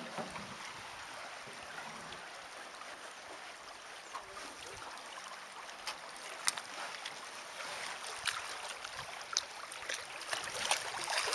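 River water rushing and gurgling along a paddled aluminium canoe. There are a few sharp ticks from the paddling in the second half, and the water grows louder near the end as the current quickens toward a riffle.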